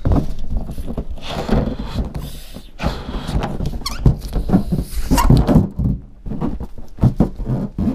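Latex balloon being handled and blown up with a GoPro inside it: loud irregular rubbing and squeaking of stretched rubber against the camera, with knocks, low rumble and stretches of rushing air.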